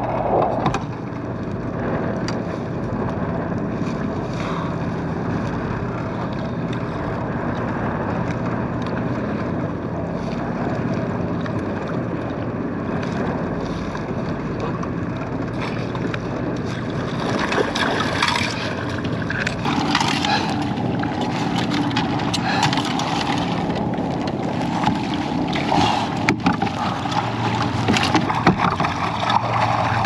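Steady hum of the fishing kayak's motor, with water washing against the hull and wind on the microphone. In the last third, irregular splashing and knocks come in as a hooked spring chinook thrashes at the surface and is netted.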